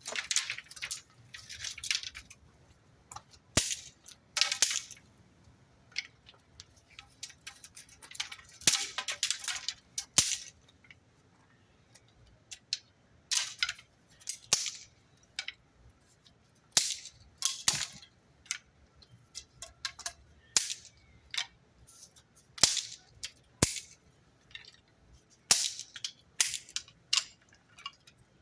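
Irregular sharp clicks and crackles, some single and some in quick clusters, separated by short quieter gaps.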